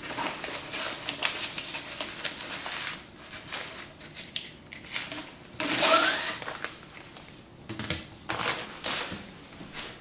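A fabric stuff sack rustling and crinkling as a rolled titanium stove body is worked out of it, with scrapes of the thin metal and a few light knocks near the end.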